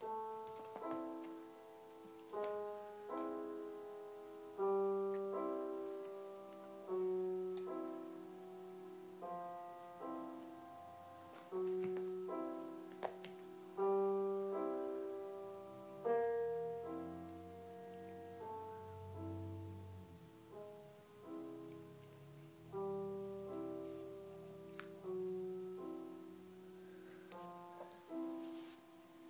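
Piano music from a radio broadcast: slow chords struck about every one to two seconds, each left to ring and fade.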